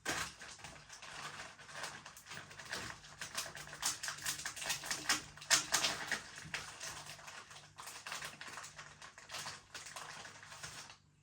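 Biscuit packaging being handled and opened: a dense, irregular crackling and rustling of the wrapper, busiest in the middle, that stops abruptly at the end.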